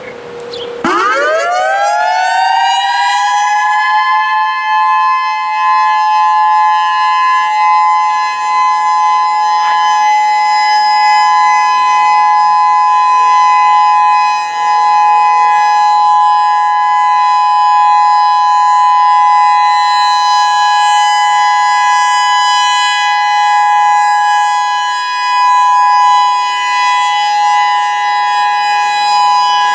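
Federal Signal EOWS 612 electronic outdoor warning siren starting up about a second in: its pitch sweeps up over a few seconds, then holds a steady, loud two-note tone, the steady alert signal of a siren test.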